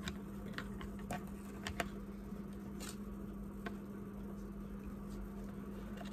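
Faint, irregular ticks and light handling noise as hands tie a ribbon around a thin stick, over a steady low hum.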